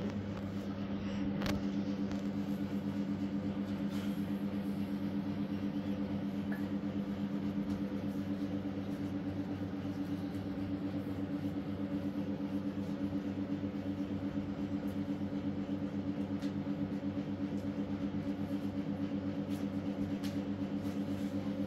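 Steady electrical hum of a running household appliance motor, with a few faint clicks now and then.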